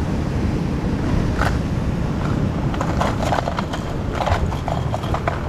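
Fishing pliers and hooked lures clicking and clattering against a plastic tackle box: one click about a second and a half in, then a run of clatters through the middle. Steady wind rumble on the microphone underneath.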